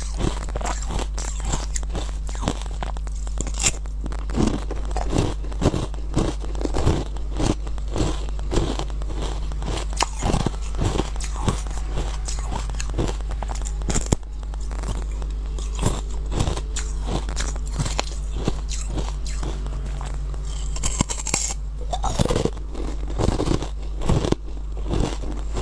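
Close-up crunching and chewing of frozen honey ice bitten off a moulded figure, picked up by a lapel microphone: many sharp crunches, busiest in the first half and again near the end, over a steady low hum.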